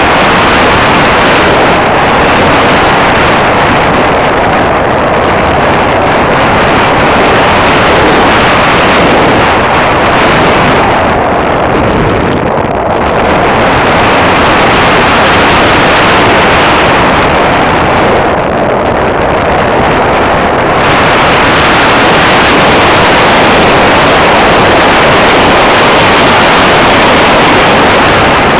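Loud, steady rush of wind and propeller noise picked up by a camera riding on an airplane in flight. The hiss thins out twice for a couple of seconds, about eleven and eighteen seconds in.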